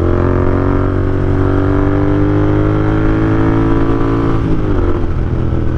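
Royal Enfield Interceptor 650's parallel-twin engine pulling under load, its pitch rising slowly as the bike gains speed, then easing off about four and a half seconds in, over a steady low rumble.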